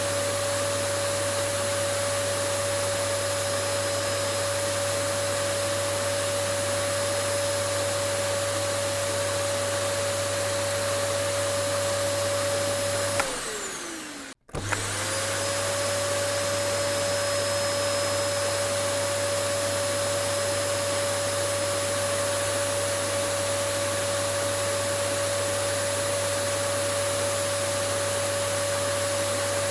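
Vacuum cleaner motor running with a steady whine. About 13 seconds in, it winds down, its pitch falling, and stops briefly. It then starts again and spins back up to the same steady whine.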